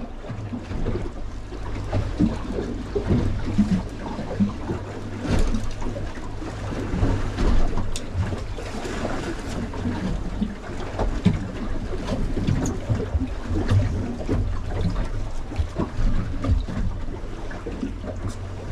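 Choppy water slapping against a small boat's hull, with wind noise and occasional sharp knocks as the boat rocks.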